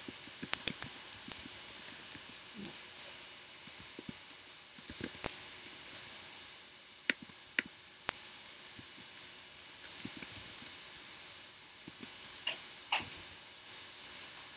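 Irregular computer keyboard keystrokes and mouse clicks, with a faint steady whine from the MacBook Air's fan underneath.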